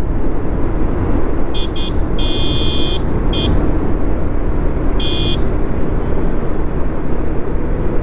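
Motorcycle on the move, its engine and road noise running steadily, while a horn sounds in short honks: two quick beeps about a second and a half in, a longer blast just after, another short beep, and one more around five seconds in.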